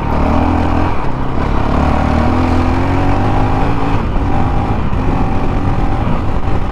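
2019 Honda CRF450L's single-cylinder four-stroke engine running as the bike is ridden, its note changing with the throttle and dipping briefly about a second in and again about four seconds in. It is heard from a helmet-mounted camera.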